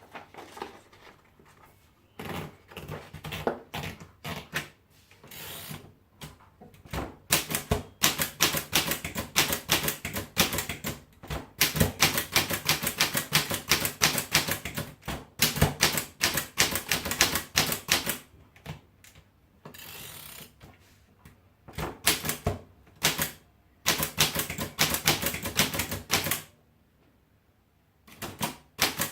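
Underwood standard four-bank manual typewriter being typed on: rapid runs of clacking keystrokes in bursts with short pauses between them, and a brief steadier rasp about two-thirds of the way in.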